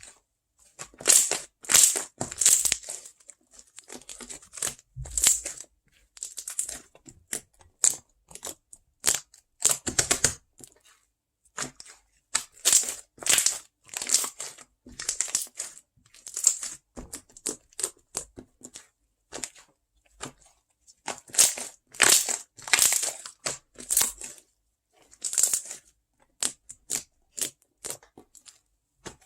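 Close-up ASMR crinkling and crushing sounds: an irregular run of short, scratchy bursts of varying loudness, some sharp and crisp.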